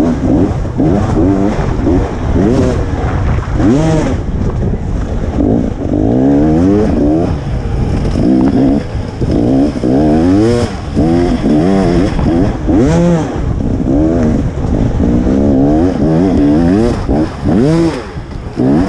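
KTM 300 XC two-stroke dirt bike engine ridden hard on tight trail, revving up and falling back over and over, about once a second, as the throttle is opened and shut.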